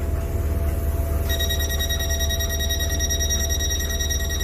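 Steady low rumble of a train carriage in motion. About a second in, a steady high-pitched whine of several pure tones starts and holds.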